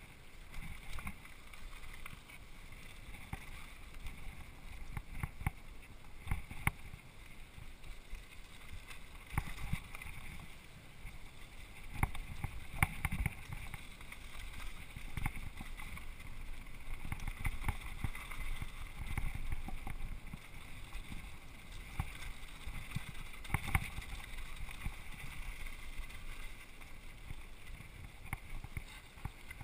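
Mountain bike rolling fast down a dirt trail: a steady rumble of tyres on packed dirt and gravel with wind on the microphone, broken by frequent sharp clatters and knocks as the bike rattles over bumps.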